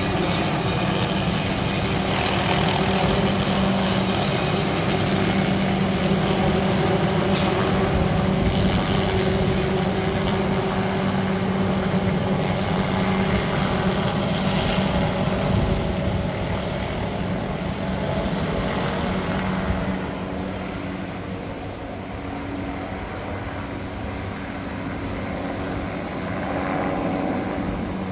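Helicopter running overhead with a steady low hum and rotor noise as it carries a suspended multi-blade tree-trimming saw; about two-thirds of the way through the sound grows fainter as the helicopter moves off.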